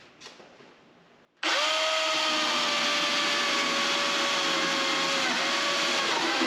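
Milwaukee M18 Fuel battery chainsaw with a 16-inch bar starts suddenly about a second and a half in. It runs at a steady full-speed whine while cutting through a wooden 4x4, its pitch dipping only briefly under the load.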